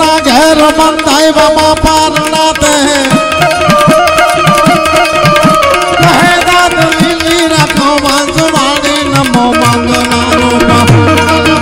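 Indian folk music played live: tabla drumming under a held melody line that steps between notes, settling on a lower held note near the end.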